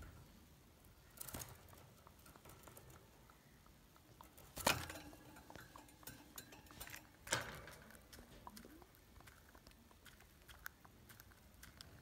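Budgerigars moving about in a wire cage: scattered light clicks and taps, with three louder knocks about a second in, near the middle and about seven seconds in, the middle one ringing briefly.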